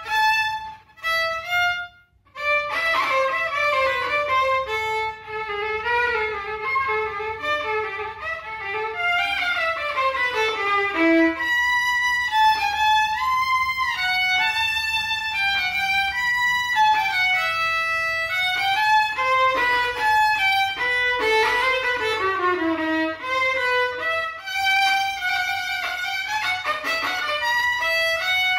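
Violin bowed without a mute, playing a melody of flowing runs that rise and fall, bright with high overtones. A few short notes and a brief break come in the first two seconds before the playing runs on without pause.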